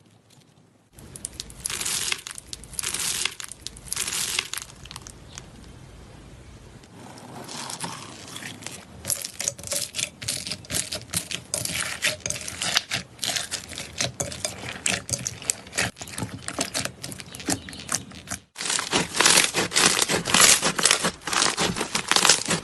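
Slime being squeezed and poked by hand, giving dense crinkly crackling with sharp clicks and pops. There is a brief break about three quarters of the way through, after which the crackling is louder and denser.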